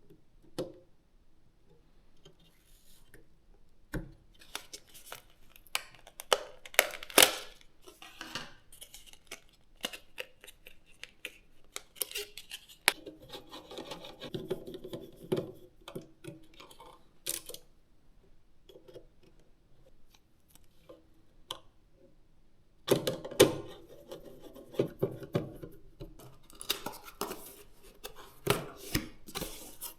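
Hands handling PC parts and packaging: irregular sharp clicks and taps of plastic and metal, with stretches of rubbing and rustling.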